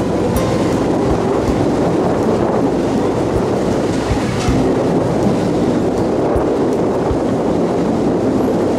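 A ferry under way: a steady low engine drone mixed with the rushing wash of its wake.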